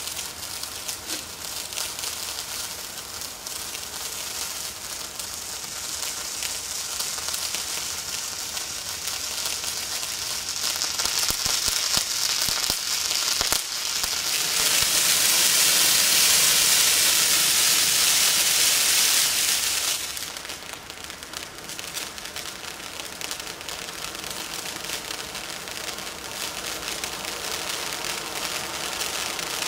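Ground fountain firework burning: a steady hiss full of small crackles. About halfway through it swells for several seconds into a louder, harsher hiss, then falls back to a lighter crackling spray of sparks.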